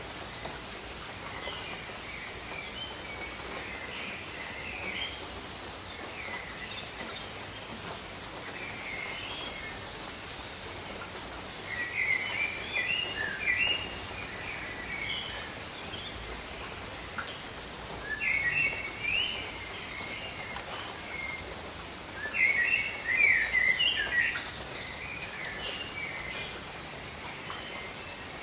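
Steady light rain falling on leaves, with songbirds chirping and singing in repeated bursts, loudest in the second half.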